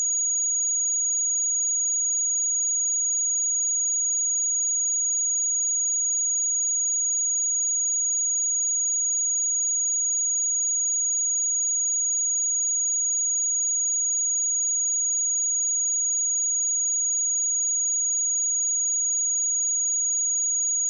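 A single steady 6738 Hz sine-wave test tone, a constant high-pitched whistle at even loudness.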